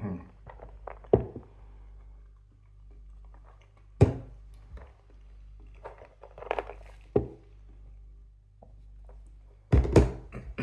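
Several sudden thumps at irregular intervals, the loudest near the end, with a few quieter knocks between them over a low steady hum.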